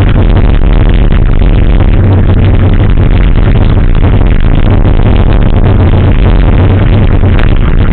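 Loud, steady electronic dance music with a heavy bass.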